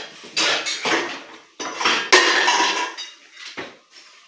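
Dishes, pots and utensils clattering as they are handled on a kitchen counter, in two bouts of about a second each, the second the loudest, with a single knock near the end.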